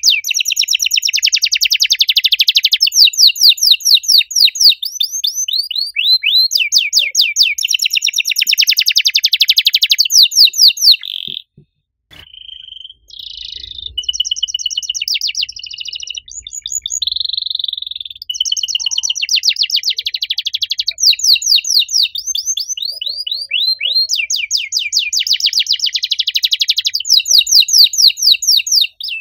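Domestic canary singing: long rolls of very rapid, high repeated notes. Near the middle the song breaks off for about a second and a half, then goes on with slower, varied notes before the fast rolls return.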